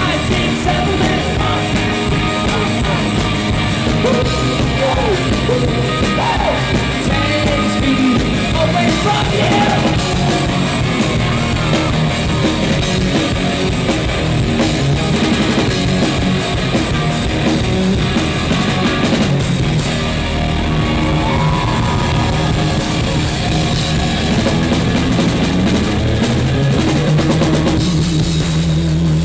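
Live rock band playing through a PA, with a drum kit, electric guitar and singing.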